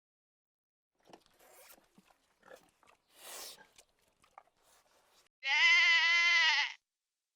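One loud bleat, slightly wavering and about a second and a half long, near the end, after a few faint rustles and a short hiss.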